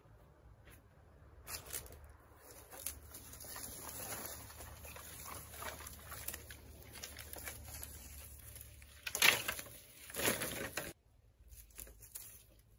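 Irregular rustling and scraping, with two louder scrapes near the end.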